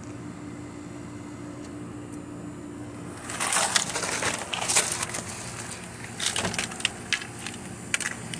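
Crackling and crinkling from plastic packaging wrap and cardboard burning. A dense burst of crackles starts about three seconds in and lasts about two seconds, then a few single sharp pops follow, over a steady low hum.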